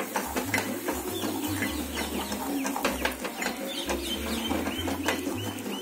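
A utensil scraping and stirring thick masala paste in a kadai, with scattered clicks. A run of short, high, bird-like chirps comes in the second half.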